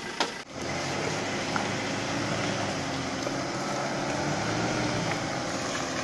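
A 4x4's engine running steadily under load while towing on a strap, after a sharp click right at the start.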